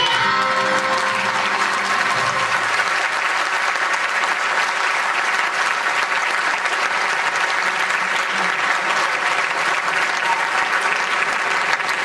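Audience applauding, dense and steady, as the last sung notes of the children's choir die away within the first second.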